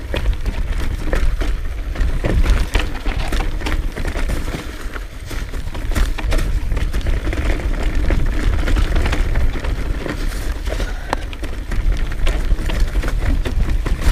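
Wind rumbling on the action camera's microphone while the tyres of a Trek Remedy 9.7 full-suspension mountain bike crunch and the bike rattles over rough trail on a downhill run, with constant small clicks and knocks.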